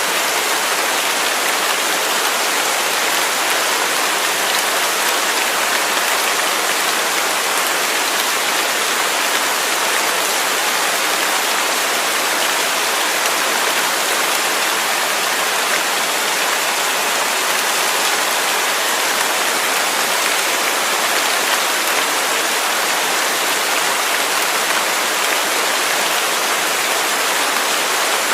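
Waterfall: water falling and splashing in a steady, even rush with no breaks.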